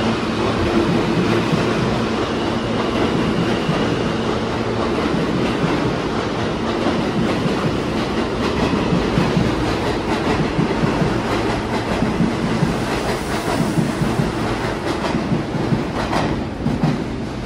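R160 New York City subway train pulling out of the station close by, its traction motors humming and its wheels clattering over the rail joints. The sound fades near the end as the last car enters the tunnel.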